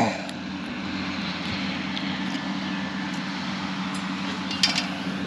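A steady, low engine drone from a distant vehicle, with a short burst of clicks about four and a half seconds in.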